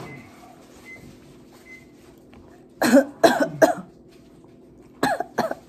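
A person coughing: three quick coughs about three seconds in, then two more near the end.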